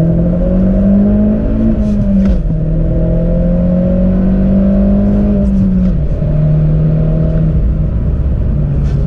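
Opel Corsa OPC's turbocharged 1.6-litre four-cylinder pulling hard under acceleration, heard from inside the cabin. The revs climb, drop at a gear change about two seconds in, climb again and drop at another change about six seconds in.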